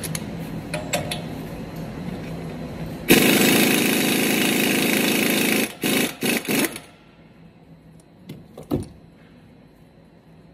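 Impact wrench on the centre nut of the truck's front wheel hub, running steadily for about two and a half seconds, then three short trigger bursts. After that it is much quieter, with a few faint clicks.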